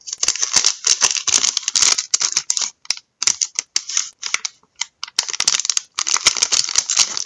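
A football trading card pack being torn open and its cards handled: crinkling, crackling wrapper and sharp clicks, in three bursts with short pauses between.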